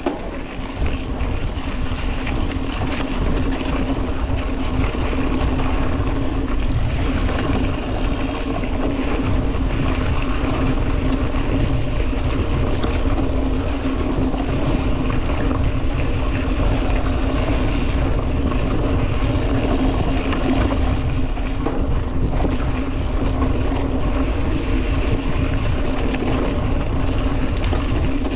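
A motor running at a steady, unchanging speed, its hum holding one pitch, with heavy wind rumble on the microphone.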